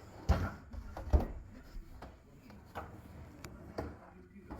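Knocks and bumps from a two-tier wooden pull-out cabinet drawer being handled and slid: two sharp knocks about a second apart near the start, then a few lighter clicks.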